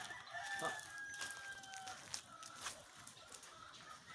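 A rooster crowing faintly, one long held call that falls slightly in pitch, with a few sharp clicks along with it.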